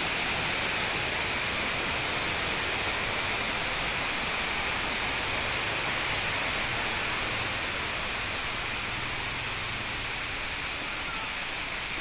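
Steady rushing hiss of a nearby waterfall, a little quieter in the second half.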